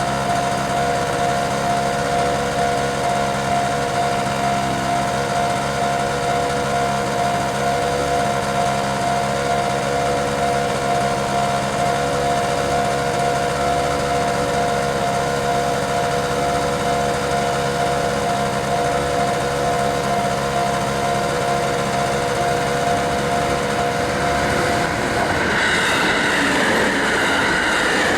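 Japanese level-crossing warning bell ringing its steady 'kan-kan' alarm. About 25 seconds in, the bell's tone gives way to the noise of a train passing over the crossing, wheels running on the rails.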